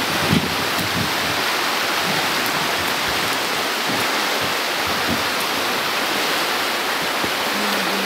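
Steady rushing of river water flowing fast past the bank, an even hiss with no letup. A light knock sounds near the start.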